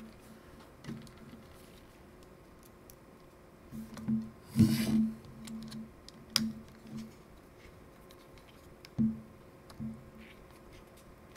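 Faint, scattered clicks, taps and scrapes of a precision screwdriver working small screws in a disassembled plastic compact-camera body, with a brief louder scrape about halfway through.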